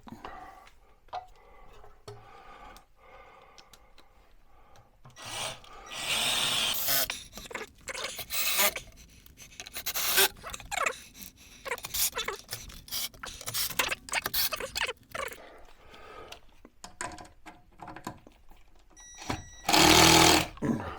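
Cordless drill-driver driving screws through wood, in a run of about a second and a half about six seconds in and another near the end, with clicks, knocks and scraping of wood being handled in between.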